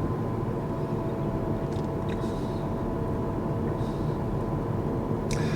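Steady road and tyre noise inside the cabin of a moving Kia EV6 electric car, with a faint steady hum over it.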